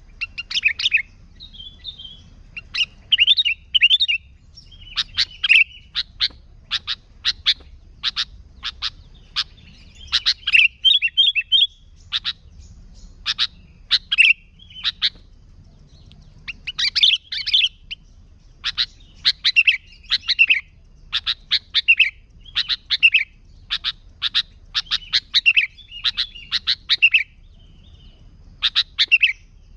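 Sooty-headed bulbul singing busily: a run of sharp, quick notes and short chattering phrases, repeated every second or so.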